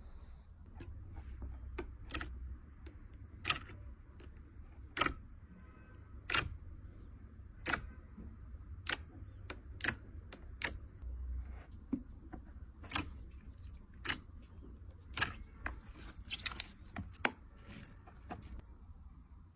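Slime being kneaded and pressed, giving off sharp, short clicks and pops of trapped air, roughly one a second.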